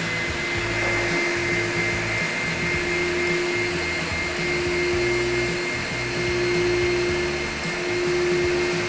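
Goodway EV-60-P twin-motor wet/dry vacuum running with both motors switched on: a steady motor whine and airflow rush, the high whine settling to a constant pitch in the first second.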